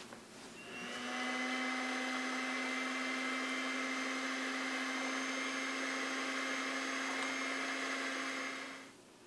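Electric blender motor starting about a second in, running at an even, unchanging pitch, then switching off near the end.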